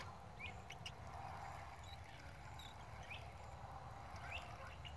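Faint outdoor ambience: short, high, rising chirps from birds, a few of them scattered through, over a steady low rumble. A sharp click right at the start.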